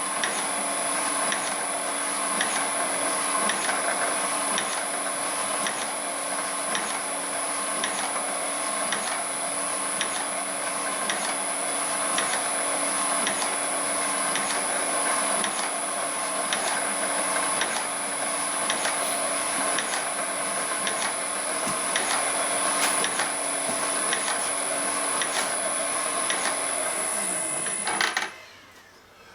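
Motor-driven homemade crusher machine running steadily, with a constant high whine, a low hum and an evenly repeating click a little more than once a second. Near the end it is switched off and runs down.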